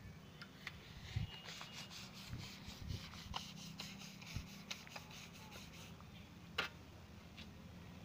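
Mason's trowel scraping and tapping on wet cement mortar as it is scooped from a pan and spread onto a form: a run of small scrapes and clicks, with one sharper click about six and a half seconds in.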